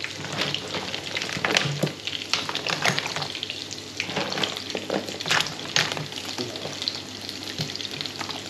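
Hard crayfish leg shells clattering and knocking against each other and the pot as they are dropped in, in irregular clicks, over a steady sizzle of crayfish pieces frying in hot oil.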